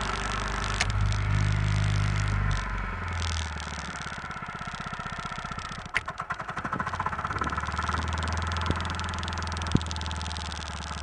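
Honda walk-behind lawn mower's small four-stroke engine running while still soaked from a hose wash-down, keeping going despite the wet air filter, spark plug and carburettor. It runs higher for the first couple of seconds, slows about three seconds in, and after a sharp click about six seconds in runs briefly unevenly before settling to a steady idle, with a few more single clicks near the end.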